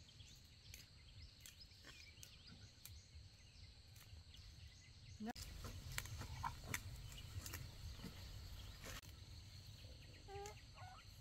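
Near silence: faint outdoor ambience with scattered soft clicks, and a short wavering call about ten seconds in.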